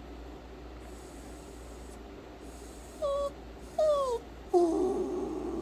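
Dog whining: two short high whimpers about three and four seconds in, the second falling in pitch, then a longer, lower whine near the end. It comes from a restless dog whose owner thinks its tummy is upset from eating human food.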